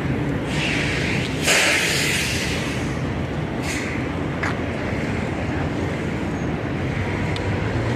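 Diesel tractor-trailer pulling FedEx Ground double trailers idling and creeping forward with a steady low engine drone. A loud hiss of air from its air brakes comes about a second and a half in, with a couple of light clicks a few seconds later.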